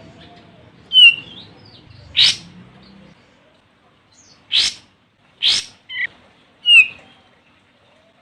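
Olive-winged bulbul calling: about six short, sharp notes at uneven intervals, some clipped and some with a quick falling turn.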